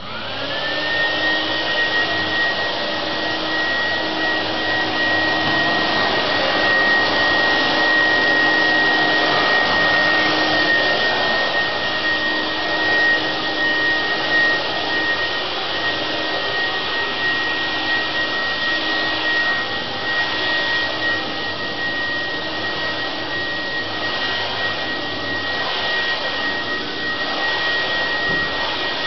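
An electric motor with a fan switches on, spinning up within about a second to a steady high whine over a loud rush of air, and keeps running.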